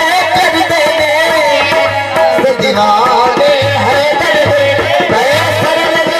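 Qawwali: male voices singing a devotional song over harmoniums, with a hand drum keeping the beat.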